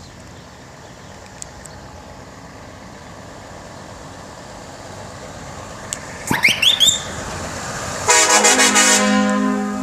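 A truck approaches, its running noise growing louder, and sounds its air horns. About six seconds in come a few short toots that each sweep upward. A couple of seconds later comes a loud burst of rapid toots that settles into a held chord, fading as the truck passes.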